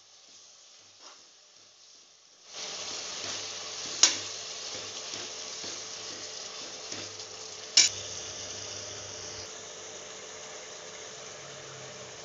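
Onions, tomatoes and whole spices sizzling in hot oil and ghee in an aluminium pressure cooker as they are stirred with a metal slotted ladle. The sizzle starts about two and a half seconds in, and the ladle clinks sharply against the pot twice.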